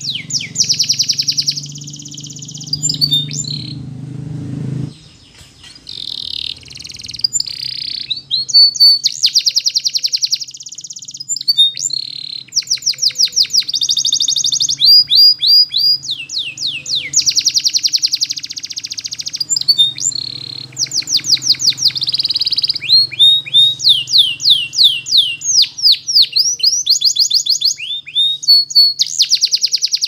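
Canary singing a long, continuous song of rapid trills, each phrase a quick run of one repeated note lasting a second or two before it switches to a new note and speed.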